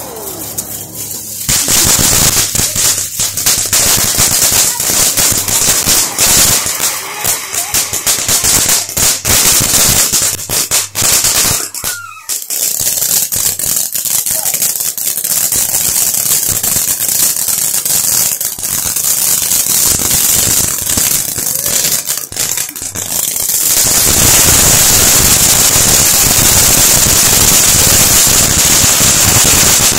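Ground firework fountains spraying sparks, with dense rapid crackling pops. About six seconds from the end the crackling gives way to a steady loud hiss of a fountain burning.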